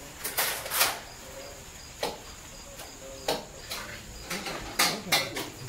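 Brief crinkling rustles of aluminium foil and handling noise, about nine in a few seconds, as garnish is laid on a foil-lined platter, over a faint steady high-pitched chirr.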